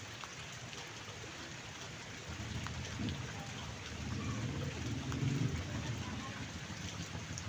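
Steady rain falling, with scattered drop ticks. A low rumble comes in about two seconds in and grows louder.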